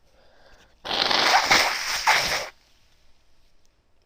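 A woman blowing her stuffy, congested nose in one hard blow lasting about a second and a half, starting about a second in.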